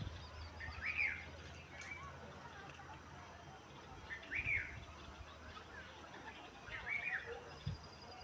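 A bird calling three times, about three seconds apart, each a short chirp that rises and falls in pitch, with fainter chirps in between.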